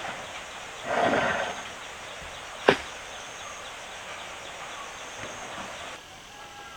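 Rural outdoor background with a faint high insect drone, a short animal call about a second in, and a single sharp click near the middle.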